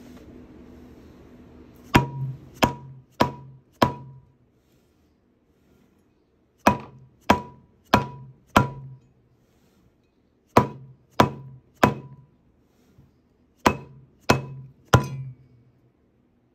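Mallet blows on metal, struck in four quick groups of three or four, each blow followed by a short ring.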